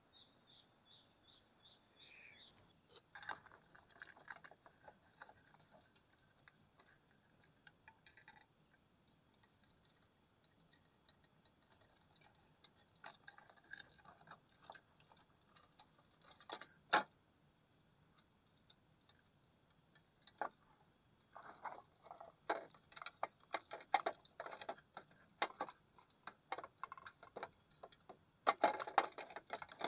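Plastic clicks, taps and rattles from a clear multi-compartment plastic box being handled, its small lids and drawers knocking. The clicks come scattered at first and grow busier in the second half, with one sharp knock about 17 seconds in.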